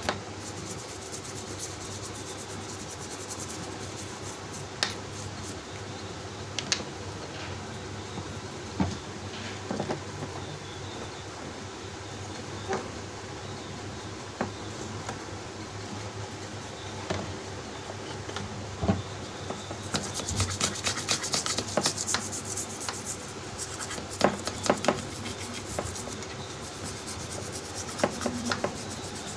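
A small brush scrubbing a printed circuit board wet with thinner, in runs of quick rubbing strokes, cleaning carbon deposits off the board, with scattered light clicks and taps as the board is handled. The scrubbing is densest about two-thirds of the way through, over a steady low hum.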